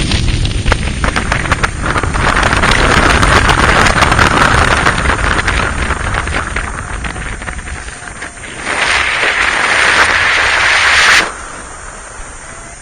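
Strong wind buffeting the microphone of a camera carried on a paraglider in flight, rising and falling in gusts, then cutting off suddenly near the end.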